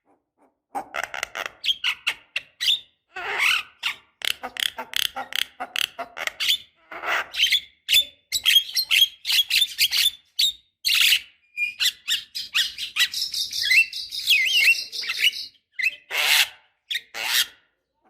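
Javan myna singing: a fast, irregular run of harsh, chattering notes, with a few whistled, pitch-sliding notes in the middle.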